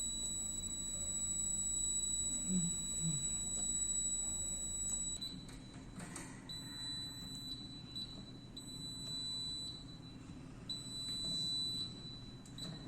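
Fire alarm control panel's buzzer sounding a steady high-pitched tone, which after about five seconds breaks into on-and-off beeps of about a second each.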